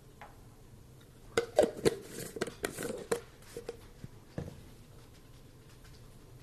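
A quick series of sharp clicks and clatter from a honey jar and measuring spoon being handled on a kitchen counter, followed by one duller knock.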